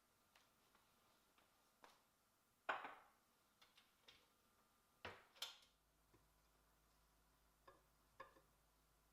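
Sparse light knocks and clinks of objects being handled, the loudest about three seconds in and two more close together around five seconds in, against a quiet room.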